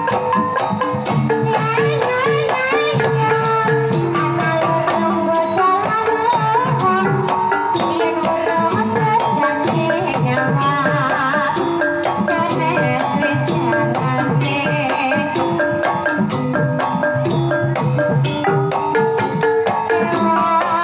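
Javanese Banyumasan gamelan music: bronze pot gongs struck with mallets and a kendang hand drum in a steady rhythm, with a female sinden singing over them.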